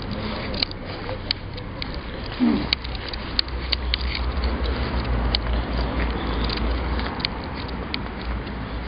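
Footsteps crunching through dry leaves and brush, with many scattered sharp cracks of twigs and stalks, over a low rumble.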